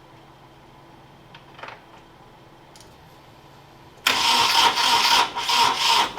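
Nissan KA24DE four-cylinder engine being cranked over on the starter about four seconds in, a loud, uneven, pulsing churn that does not settle into running. The engine will not start, with ignition timing suspected.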